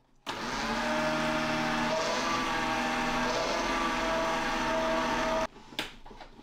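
Food processor's electric citrus-press attachment running steadily as a lemon half is pressed onto its spinning reamer cone. The motor cuts out about five and a half seconds in, and a couple of light knocks follow.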